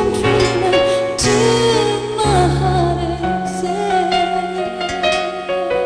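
Woman singing a slow pop ballad live, holding long notes that slide and waver between pitches, over instrumental accompaniment with a steady, changing bass line.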